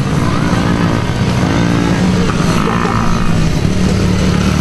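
Small children's dirt bike engines running, their pitch rising and falling as the riders work the throttle.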